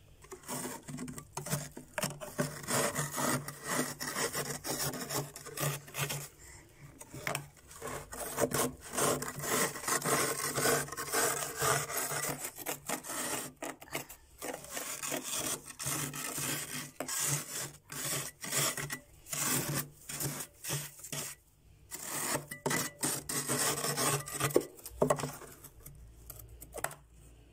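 A spatula scraping built-up frost and ice off the inside of a freezer in quick repeated strokes, with a few short pauses.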